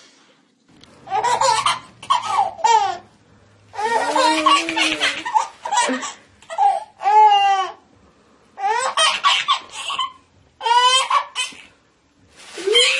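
A baby laughing in about five separate bouts, each a run of quick, high-pitched laughs, with short pauses between them.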